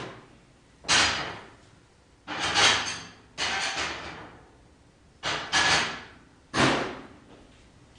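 A series of sharp wooden knocks from firewood being worked, about one a second, some coming in quick pairs.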